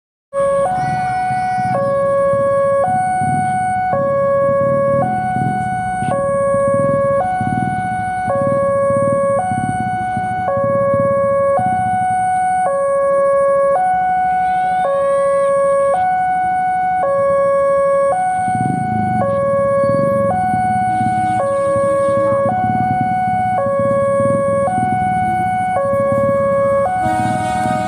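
Railway level-crossing warning alarm sounding a two-tone electronic chime, a low and a high note alternating about once every three quarters of a second. Under it runs the low rumble of an approaching diesel locomotive, which grows louder about two-thirds of the way in.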